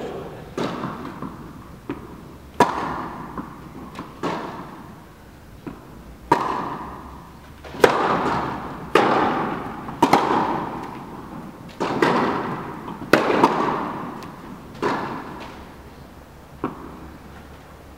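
Tennis rally on an indoor court: sharp pops of racket strikes and ball bounces, one every second or two, each ringing on in the hall's echo.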